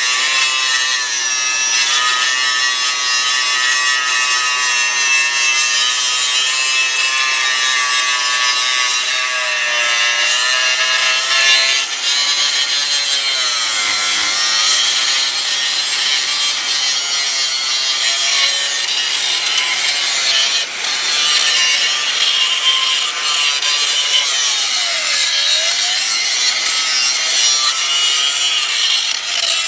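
Angle grinder with an abrasive disc grinding down the weld bead on a steel truck rear axle housing: a steady, loud, high-pitched grinding whine whose pitch dips briefly twice, about halfway through and again near the end.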